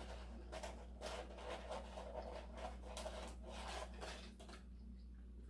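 Close chewing of crispy fried food: a run of faint, soft crunches, about two or three a second, that fade out near the end. A steady low hum lies underneath.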